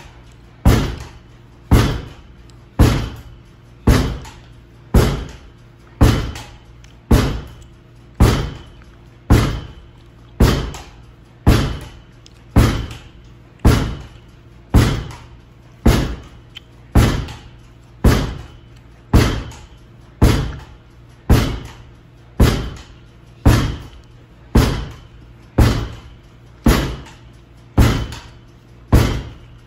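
Lacrosse wall ball: a hard rubber lacrosse ball thrown against a wall and caught in the stick, making a sharp thud about once a second in a steady rhythm. Each thud rings briefly in the room.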